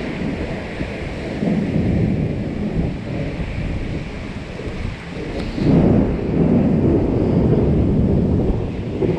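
Thunder rumbling, swelling louder a little over halfway through, with wind buffeting the microphone.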